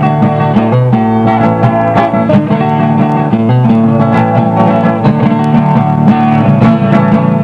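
Instrumental break in a caipira country song: plucked acoustic string instruments playing a steady, busy accompaniment between sung verses.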